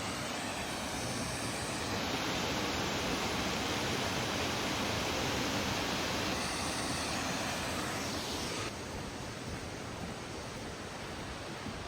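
Waterfall: a steady rush of falling water that grows louder about two seconds in and drops back a little about three-quarters of the way through.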